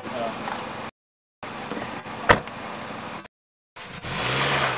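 A Nissan Sentra's car door shutting with a single sharp thunk about halfway through, over a steady high chirr of insects. The sound drops out to dead silence twice briefly, and near the end a short swelling rush of noise with a low hum comes in.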